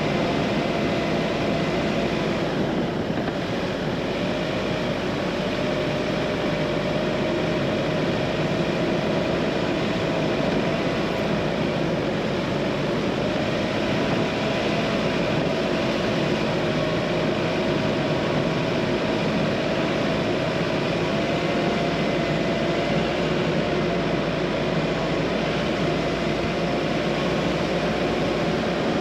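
Car driving along a narrow lane: steady engine and tyre noise, with a humming tone that drifts a little in pitch.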